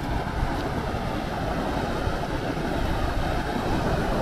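Sea wind buffeting the microphone in a steady low rumble, over the wash of waves breaking on rocks.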